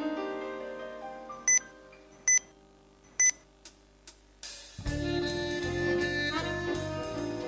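A flute's held notes fade out, followed by three sharp, bright clicks under a second apart. About two-thirds through, the full jazz band comes in together: drum kit, electric bass, keyboard and horns including trombone.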